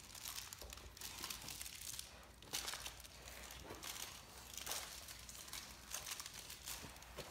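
A plush lizard toy crinkling and rustling in irregular bursts as two Great Danes tug and chew on it between them.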